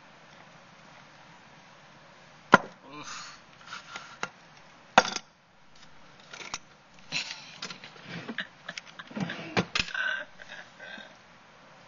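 Handling noise close to the microphone: sharp knocks and taps with rubbing and rustling in between. The loudest knocks come about two and a half and five seconds in, then a busier run of knocks and rustling from about seven to ten seconds.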